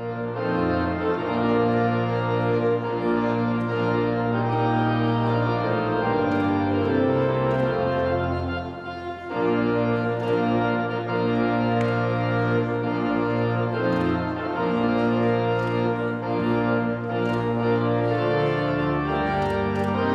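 Organ playing slow, sustained chords, with a short break in the phrase about nine seconds in.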